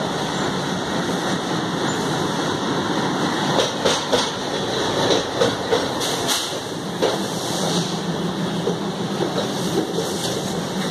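ALCO WDM3D diesel-electric locomotive and its passenger train arriving at a station platform, the coaches rolling past with a steady rumble and wheels clicking over rail joints, most sharply about four and six seconds in.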